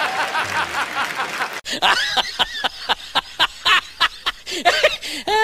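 Hearty human laughter that cuts off abruptly about a second and a half in, followed by loud, rhythmic 'ha-ha-ha' laughter at about five pulses a second.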